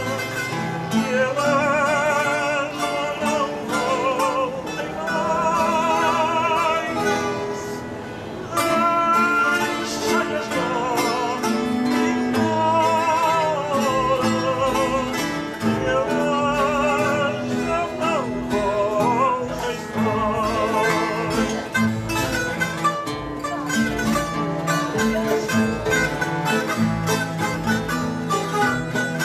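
Fado played on Portuguese guitar, classical guitars and a bowed cello, under a sung melody with wide vibrato.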